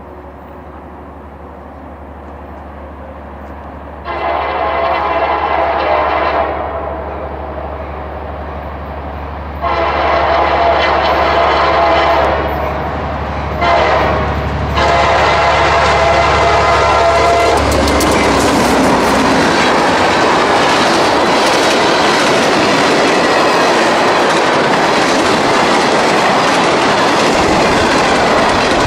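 Diesel freight locomotives, an EMD GP39-2 and GP38-2 pair, approach with a rising engine rumble and sound the grade-crossing horn signal: long, long, short, long. From about 18 seconds in, the train passes close by as a steady loud rush of engines and wheels clattering on the rails.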